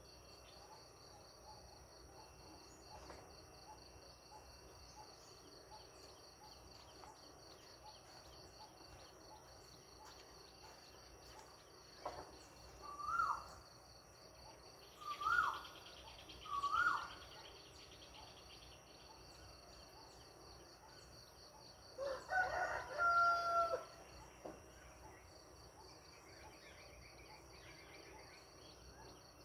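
Steady chorus of insects under countryside birdsong: three short rising bird calls in quick succession near the middle, then a distant rooster crowing for about two seconds near the end.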